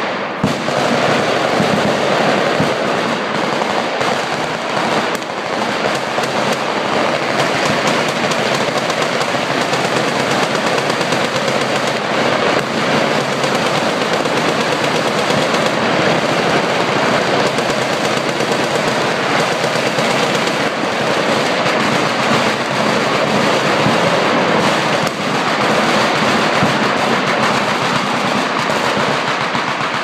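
Several machine guns firing at once from a firing line, a continuous dense roll of overlapping automatic gunfire with no pauses.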